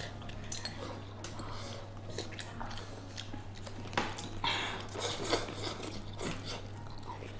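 Eating at the table: chopsticks clicking and scraping against a porcelain rice bowl as rice is shoveled into the mouth, with chewing. A steady low hum runs underneath, and a few louder clicks come around the middle.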